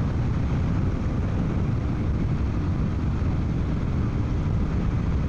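Steady rush of wind over a motorcycle helmet mixed with the low running of a Suzuki V-Strom 800DE's parallel-twin engine at even road speed, heard from inside the helmet.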